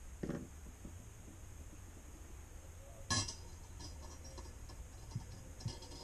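Bicycle cassette cogs and spacers clinking together as they are fitted onto a Shimano Deore 12-speed cassette by hand: one sharp metallic clink about three seconds in, with a few lighter ticks near the end.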